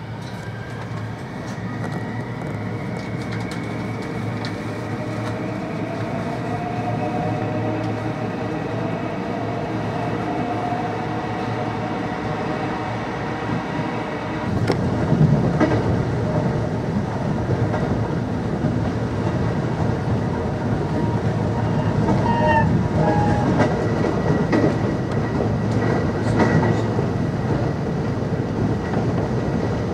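JR West 521 series electric train running, heard from inside the car. Its motor whine rises in pitch over roughly the first ten seconds as it picks up speed, over steady rolling noise that gets louder about halfway through, with occasional clicks.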